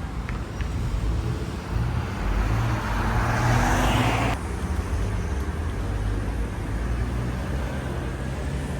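A motor vehicle running with road noise: a steady low rumble, and a louder rushing swell about halfway through that cuts off sharply.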